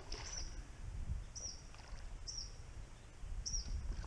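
A small bird chirps short, high notes about once a second over a steady low rumble of wind and water. Right at the start there is a brief splash from a hooked smallmouth bass thrashing at the surface.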